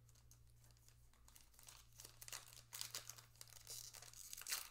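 A 2024 Topps Heritage baseball card pack wrapper crinkling and tearing as it is worked open by hand. The crackles start about a second and a half in and come in irregular bursts, the loudest near the end.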